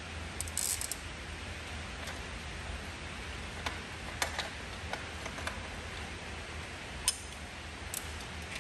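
A handful of isolated sharp clicks and ticks from hand tools working loose bolts, over a low steady hum.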